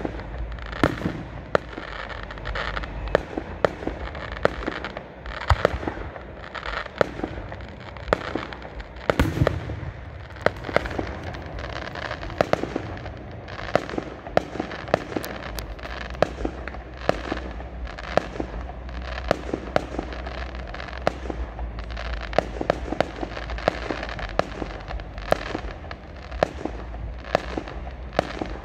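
Fireworks display: shells bursting in a rapid, irregular string of sharp bangs, several a second, without let-up.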